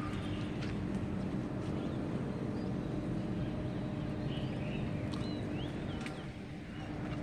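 Steady hum of rooftop air-conditioning condenser units over a low rumble, with a few short high chirps, like birds, about halfway through.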